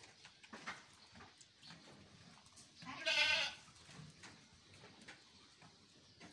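A sheep bleats once, a short wavering call about three seconds in.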